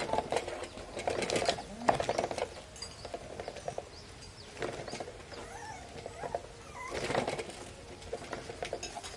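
Green plastic toy dump truck rattling and clattering over a concrete floor as it is pushed, in three separate bursts, with a few faint high calls near the middle.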